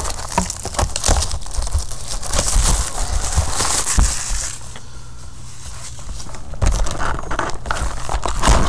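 Plastic shrink wrap crinkling and tearing as it is pulled off a sealed trading-card hobby box, dense crackling for the first four seconds or so. After a quieter moment, the cardboard box is handled, with scrapes and sharp taps near the end.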